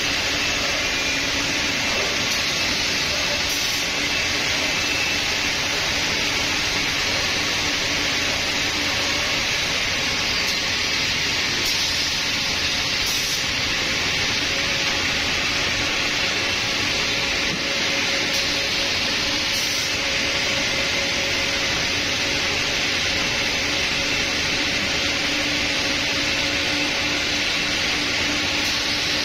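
Holztek CNC nesting router running with its cutting and extraction noise: a constant rushing sound with faint steady hums, unbroken throughout.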